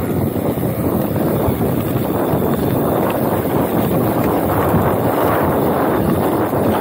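Wind buffeting the microphone of a chest-mounted action camera while riding a Sunpeed Spark mountain bike fast down a dirt track, with the tyres rumbling over the ground underneath.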